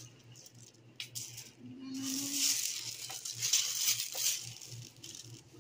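Small plastic diamond-painting supplies being handled: a sharp click about a second in, then a rustling, rattling stretch for about two and a half seconds.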